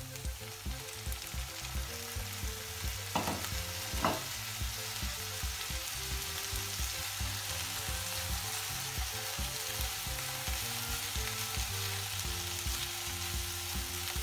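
Vegetables sizzling in a hot oiled frying pan as freshly added broccoli florets are stirred in with a silicone spatula. There are two short knocks about three and four seconds in.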